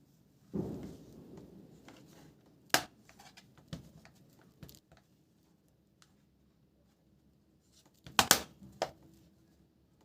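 Hands handling laptop parts and tools on a work surface: a short rustle, then a few sharp plastic-and-metal clicks and knocks, the loudest cluster near the end.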